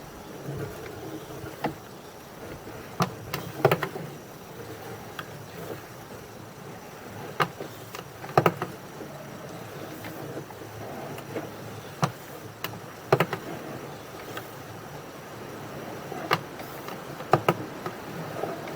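Sewer inspection camera equipment being handled: irregular sharp clicks and knocks, about ten spread unevenly through the stretch, over a steady low background noise.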